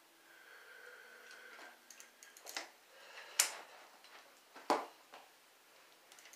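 A few sharp clicks and knocks from a bicycle's rear wheel, sprocket and chain being turned and handled by hand, the loudest about three and a half and four and a half seconds in.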